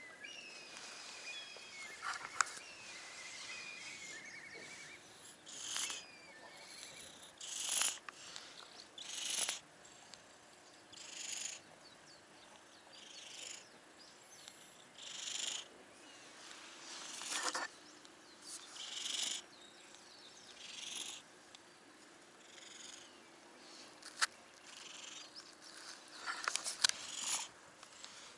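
A stray cat with a cold sneezing again and again: short hissy nasal bursts about every two seconds, with a quick cluster of them near the end. Birds sing during the first few seconds.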